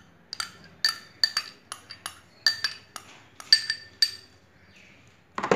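Metal spoon tapping and scraping against a small glass bowl to knock grated paneer out: a quick, irregular run of about a dozen ringing clinks over four seconds, then a duller knock at the very end.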